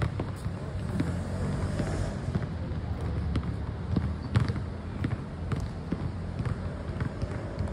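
Steady low outdoor rumble with scattered sharp knocks, about one a second, like balls striking a hard surface.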